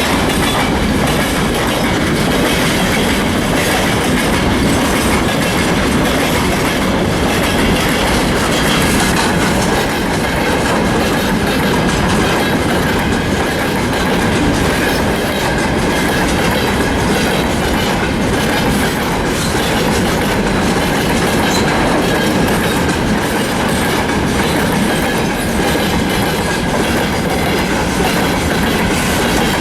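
Freight train wagons rolling past at speed, a steady loud rumble of wheels on rail with rhythmic clickety-clack over the rail joints.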